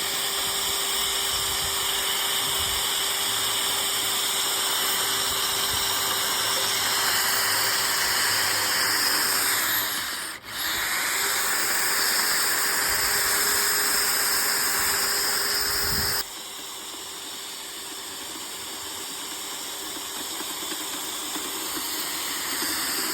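Sewer drain being cleared: a steady loud hiss of rushing water with a steady engine hum. The sound dips briefly about ten seconds in, then drops noticeably quieter about sixteen seconds in.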